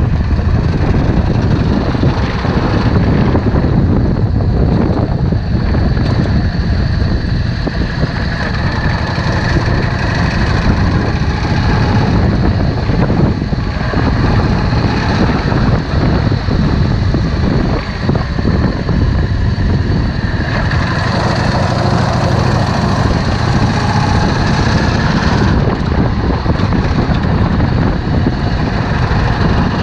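Yamaha Drag Star 650's air-cooled V-twin running steadily, with wind buffeting the microphone.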